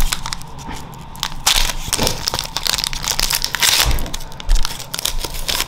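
Foil wrapper of a Pokémon Darkness Ablaze booster pack crinkling and crackling in the hands as it is torn open, in a string of sharp rustles that are busiest in the middle.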